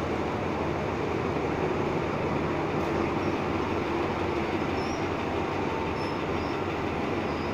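Diesel-hauled passenger train passing close by: a steady mix of the locomotive's engine and its wheels running over the rails.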